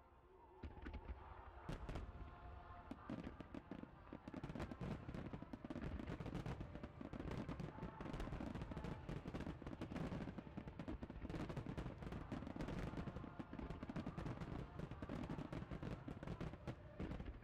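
Starmine fireworks barrage: No. 8 (8-inch) aerial shells bursting in rapid succession. A dense, unbroken run of bangs starts about a second in.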